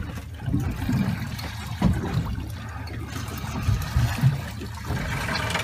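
Seawater sloshing and splashing against the side of a small fishing boat, over a constant low rumble.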